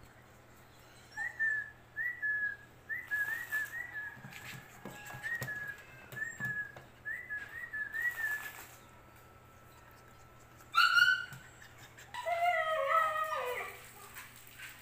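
Pocket bully puppies whimpering: a long run of short high whimpers at much the same pitch, then a louder yelp about eleven seconds in and a longer whine that falls in pitch near the end, with a little scuffling.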